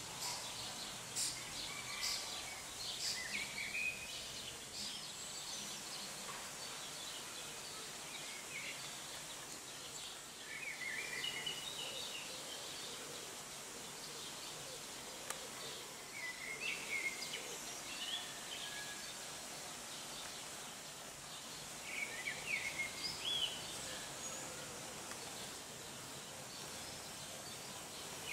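Open-air ambience of steady background noise, with small songbirds chirping in short bursts every few seconds.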